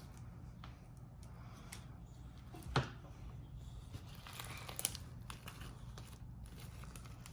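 Faint sticky clicks and crackles of homemade slime being stretched and squished by hand, with one sharper click about three seconds in and a short run of crackles a second and a half later.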